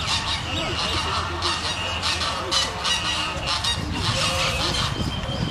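Many birds calling over one another, with honking and chattering calls packed close together, over a steady low rumble.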